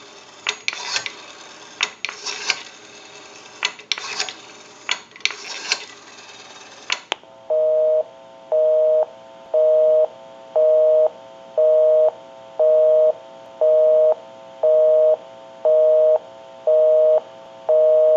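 Clicks from the Western Electric 233G payphone as the number is dialed, then a telephone busy signal heard from the handset: a steady two-note tone going on and off about once a second, because the dialed line is engaged.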